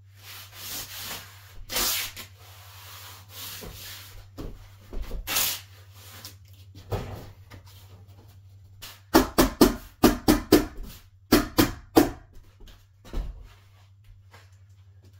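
Tape being peeled off the roll and rubbed down by hand along a carpet pad seam, in uneven spurts. About nine seconds in comes a quick run of a dozen or so louder, sharper strokes.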